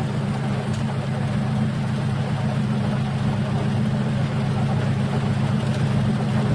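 Engine of an old army cargo truck idling steadily, a low even hum that does not change.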